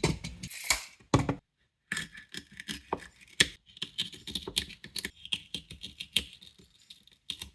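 Knife cutting a vegetable stem into sections on a cutting board: irregular clicks and knocks of the blade going through and striking the board.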